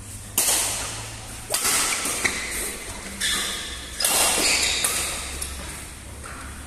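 Badminton rackets hitting a shuttlecock in a fast rally, several sharp hits about a second apart, each ringing on in a large echoing hall. The loudest hit comes about four seconds in, on a jump smash.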